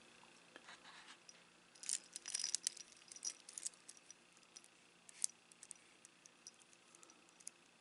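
Stainless steel link watch bracelet clinking softly as it is handled and turned in the fingers: a cluster of small metallic clicks about two to four seconds in, another click a little after five seconds, then scattered faint ticks.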